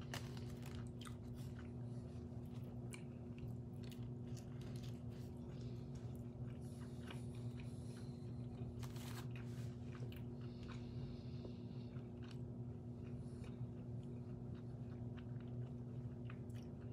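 Close-miked mouth sounds of someone chewing and biting McDonald's food, with many small wet clicks and crunches. A steady low hum runs underneath.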